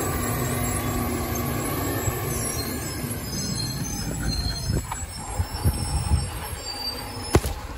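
Side-loader garbage truck driving off, its engine noise fading as it moves away, with short faint squeals from its brakes. In the second half come several thumps and a sharp knock near the end, from the camera being jostled as its holder stumbles.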